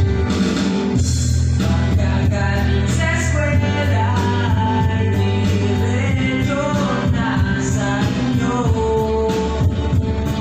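A man singing live into a microphone over a karaoke backing track with a steady bass line and drum beat, amplified through loudspeakers.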